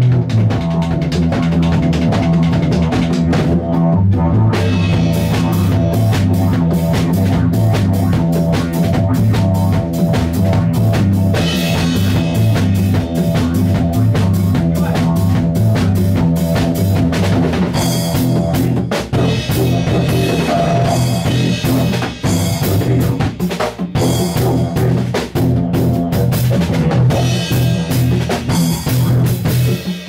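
Music with a drum-kit beat over sustained low bass notes; brighter, higher percussion joins about four seconds in.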